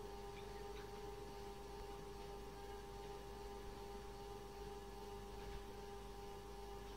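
Faint steady hum, a constant tone with a weaker higher overtone, unchanging throughout.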